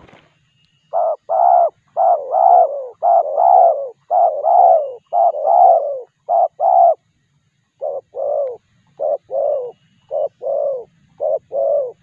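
Spotted dove cooing close by: a long run of loud, paired coo notes, roughly one pair a second, with a short pause about two-thirds of the way through.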